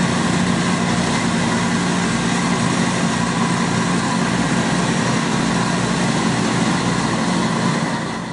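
Engine of a Somero S-840 laser screed running steadily as the machine screeds wet concrete, fading a little near the end.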